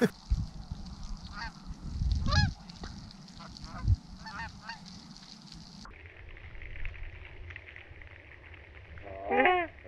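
Canada geese honking: scattered honks with a few low thumps in the first half, then a louder run of honks near the end.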